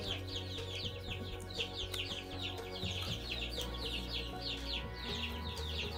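A brood of young chicks peeping, many short falling high-pitched peeps overlapping without a break.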